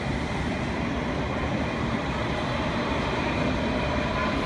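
Steady low rumble and hum of a moving vehicle.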